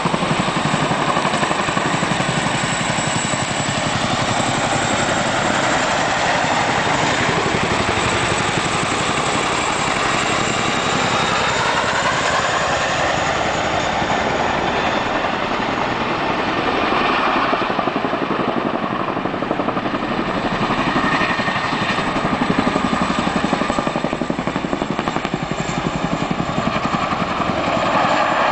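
CH-47 Chinook tandem-rotor helicopters taking off and climbing away: a loud, steady rotor chop over turbine engine noise.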